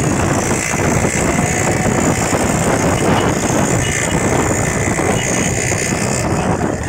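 Motorcycle engine running with wind rushing over the microphone, a steady loud noise with no clear breaks, recorded from a moving bike.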